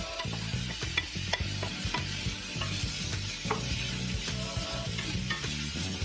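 Shredded rotisserie chicken and diced onion sizzling as they sauté in a stainless steel pot. A wooden spoon stirs them, with frequent short clicks and knocks as it scrapes the bottom and sides of the pot.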